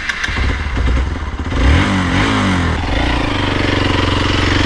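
Hero XPulse motorcycle's single-cylinder engine running under way as it rides uphill, its pitch rising and dipping about two seconds in, then holding steady.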